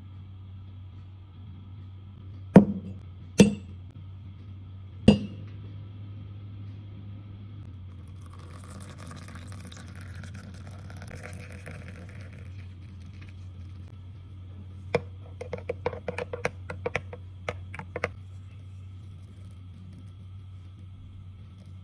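A spoon knocks sharply against crockery three times. Then warm milk is poured into a ceramic mug with a steady splashing hiss for about five seconds, and near the end comes a quick run of light clinks.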